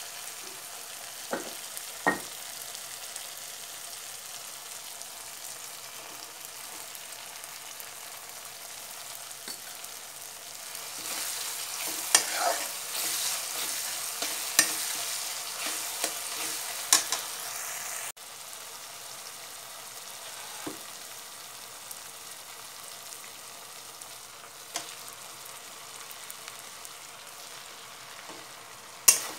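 Food sizzling as it fries in a pan, stirred with a utensil that clicks and scrapes against the pan now and then. The sizzle swells for several seconds a little before halfway, then drops back suddenly.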